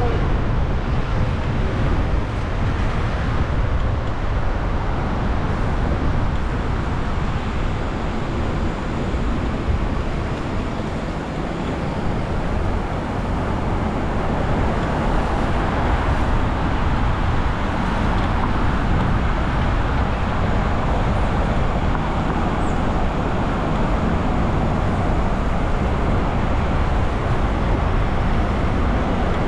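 Steady road noise of a car driving in city traffic: a low rumble of engine and tyres with a hiss of traffic, no distinct horns or knocks standing out.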